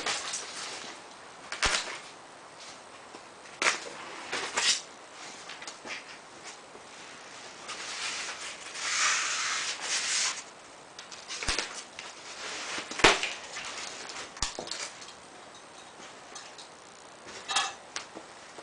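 Hands fitting a solar panel into its metal mounting frame: scattered clicks and knocks of panel and frame parts, and a scraping slide about nine seconds in.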